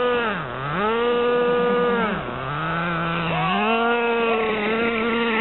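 Radio-controlled off-road car motor running at high revs with a high-pitched buzz. The pitch dips sharply and climbs back about half a second in, then drops again a little after two seconds and rises back near the end, as the throttle is eased off and opened again.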